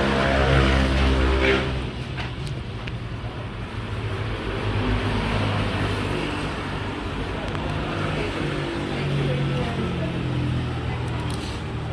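Road traffic: a vehicle engine running loud and close for the first second and a half, then a steady rumble of traffic with other engines swelling and fading.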